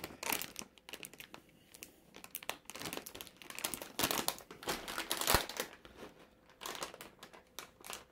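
Packaging for the turkey treats crinkling as it is handled, in short irregular rustles that are busiest about four to five seconds in.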